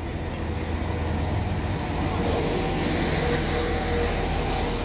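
Diesel passenger train's engine running with a low rumble and steady hum tones, growing louder over the first couple of seconds and then holding steady.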